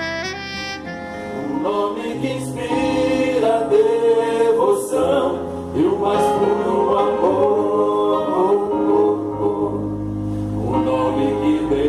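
Church vocal group singing a gospel song in several voices over instrumental accompaniment. The voices come in about a second and a half in, after a short instrumental passage.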